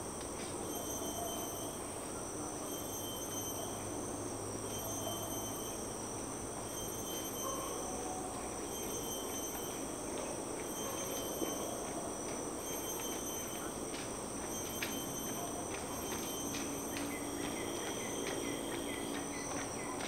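Forest insects calling: a steady high-pitched drone with a second call that pulses on and off about every two seconds. Underneath runs a steady rumble of highway traffic, and a run of short ticks comes in the second half.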